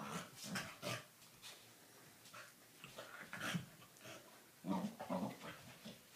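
A Doberman puppy and a corgi play-fighting, with short irregular bursts of dog vocalising: growls and whines from rough play.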